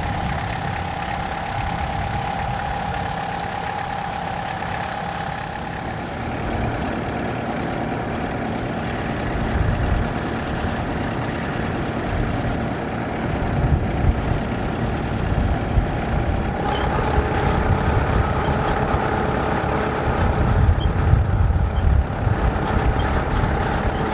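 Massey Ferguson 65 tractor engine running steadily while ploughing with a two-furrow plough. Its note shifts about six seconds in and again about seventeen seconds in.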